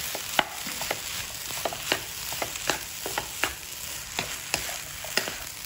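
Fried rice sizzling in a nonstick wok while a wooden spatula stirs and tosses it, the spatula tapping and scraping against the pan about twice a second.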